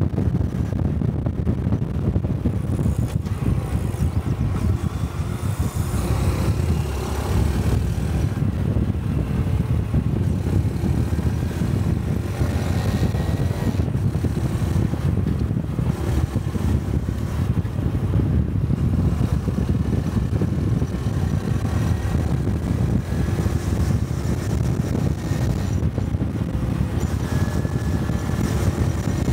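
Honda Cub 125's single-cylinder engine and exhaust running steadily under way, a continuous low rumble.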